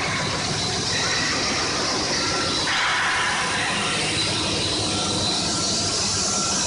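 PVC profile extrusion line running: steady machine noise with a broad hiss and a faint, even whine.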